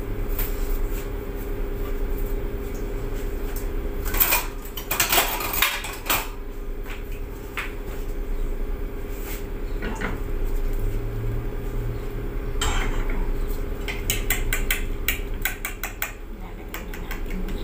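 Kitchenware clinking and clattering: a cluster of sharp knocks about four to six seconds in, a few single clinks, and a quick run of clicks near the end, over a steady low hum.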